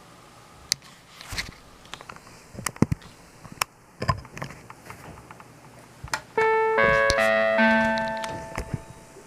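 Several sharp clicks and knocks, then a TOA four-tone electronic chime sounds its four notes about 0.4 s apart and rings out, fading over about two seconds.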